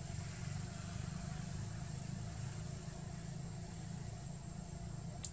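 Steady low background rumble with a faint, thin, high steady whine over it; a single sharp click sounds just before the end.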